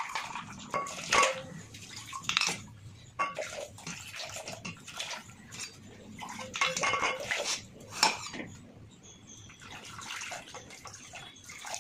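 Water pouring from a stainless steel water pot into a steel cooking pot, with several sharp clinks and knocks of steel vessels against each other.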